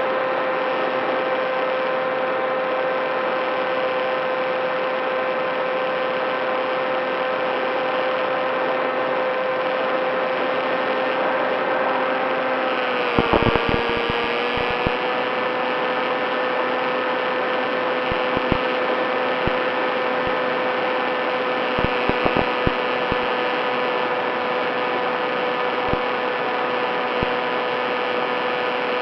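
Skywalker FPV model plane's motor and propeller running at a steady, even whine. The pitch dips briefly about halfway through, then settles back, with a few short crackles around then and later.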